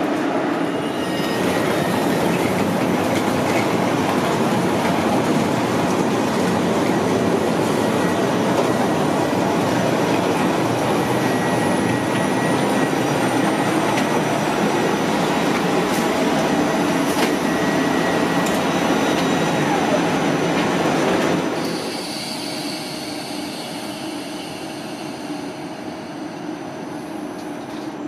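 A passenger train running into the station: a loud, steady rush of wheels on rail with wheel squeal. Partway through there is a high whine that falls in pitch, plus a few sharp clicks. The noise drops suddenly about 21 seconds in, leaving a quieter hum.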